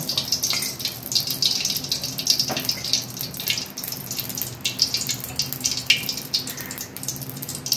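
A small pool of cooking oil heating in an aluminium kadai over a gas flame, sizzling with irregular crackles, over a steady low hum.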